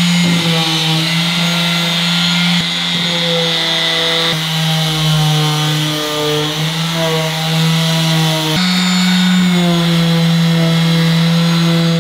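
An electric power tool running steadily under load, a strong motor hum over a hissing cutting or sanding noise. The hum's pitch steps slightly up or down a few times.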